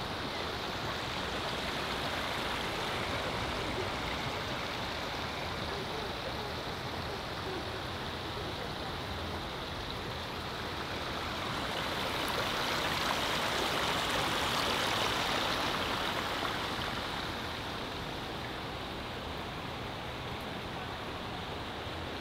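Running water of a garden stream: a steady rushing that grows louder about twelve seconds in and eases back a few seconds later.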